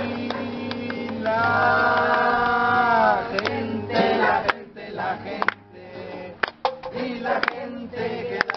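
A man singing to his own acoustic guitar: he holds one long note for a couple of seconds near the start, then sings shorter phrases over strummed chords.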